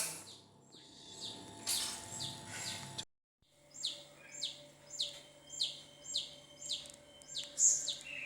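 A bird chirping over and over, each call a short falling note, about one and a half calls a second. The sound drops out completely for half a second about three seconds in.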